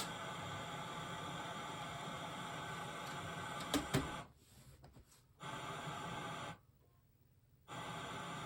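Steady static hiss from a TV fed by a faulty Panasonic DVD-VCR recorder, its picture coming and going between static and blue screen. After two sharp clicks the hiss cuts out twice for about a second each and then comes back.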